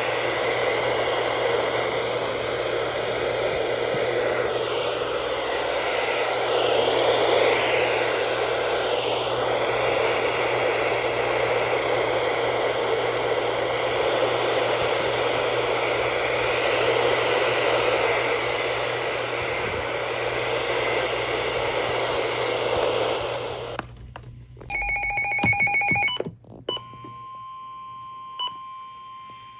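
Loud, steady static hiss from a weather-radio receiver. A little before the end it cuts out, a short burst of electronic data tones sounds, and then a steady single-pitched tone begins: the NOAA Weather Radio 1050 Hz warning alarm tone that signals an incoming warning.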